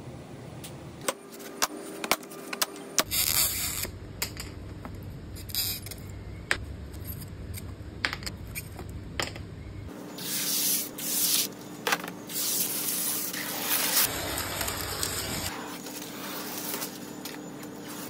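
Acrylic sheets being worked by hand: scattered sharp taps and clicks, with stretches of hissing scraping and sliding as a tool and sheets rub over the plastic.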